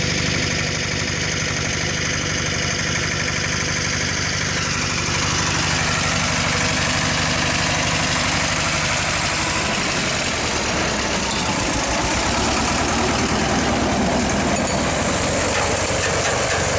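Vladimir T-25 tractor's two-cylinder air-cooled diesel running steadily under load, pulling a manure spreader. From about a third of the way in, a rushing, clattering noise from the spreader's beaters flinging manure builds over the engine.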